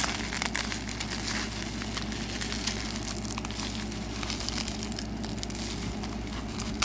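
Packing wrap crinkling and rustling with many small irregular crackles as a tightly wrapped item is pulled free by hand.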